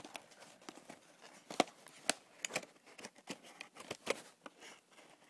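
The mouse's retail packaging being handled and pried at to get the mouse out: irregular crackles and clicks, the loudest about a second and a half in.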